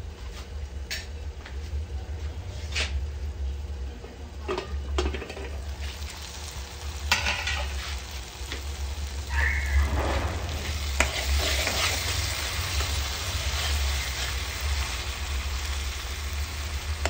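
A spoon stirring a tomato-and-spice masala in a pan on the stove: scattered clicks of the spoon against the pan, then a sizzle that grows louder from about seven seconds in. The tomatoes are cooked down soft.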